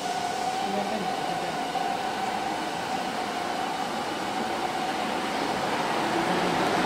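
Large five-axis gantry CNC machine running: a steady mechanical hum and rush with a constant whine, as its spindle head travels along the gantry.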